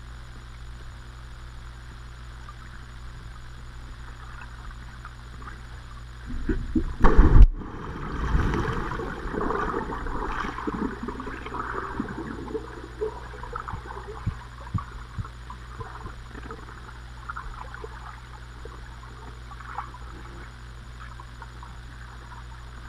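Water churning and bubbles fizzing, heard underwater through a GoPro's waterproof housing. A loud, sudden rush about six seconds in crackles on for several seconds, then thins out to scattered pops over a steady low hum.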